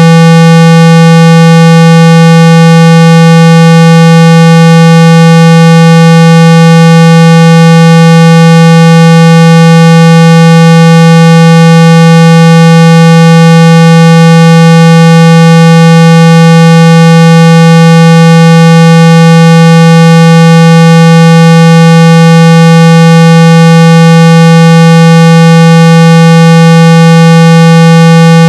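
Steady 165 Hz electronic tone at full volume with a buzzy edge from its higher overtones. This is the speaker-cleaning frequency used to vibrate water and dust out of a phone's loudspeaker.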